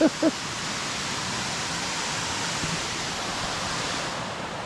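Rushing water from a creek and waterfalls running high, a steady even hiss.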